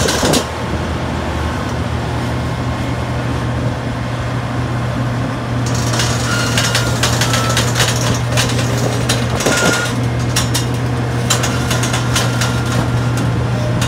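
Liebherr 984 excavator's diesel engine running steadily with a strong low hum. From about six seconds in, frequent short knocks and clanks sound over it as the machine shifts on the lowbed trailer.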